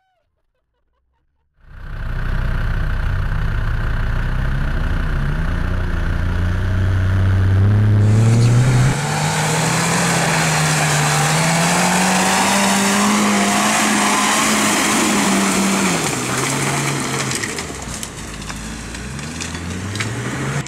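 Off-road 4x4 engine revving under load in deep mud. It cuts in suddenly about two seconds in, climbs in pitch for several seconds, holds high, drops back, then climbs again near the end, with a rushing hiss over it from about the middle on.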